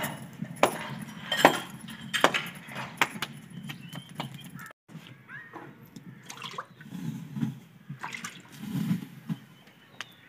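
Hands slapping a ball of roti dough flat between the palms: a run of sharp pats, most of them in the first few seconds, over a low background rumble.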